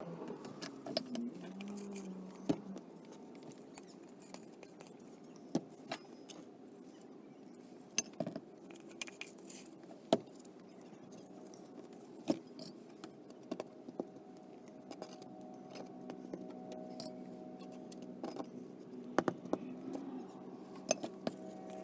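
Metal filling knife working ready-mixed filler on a chipboard baseboard: scattered sharp clicks and taps a second or two apart, over a steady low hum.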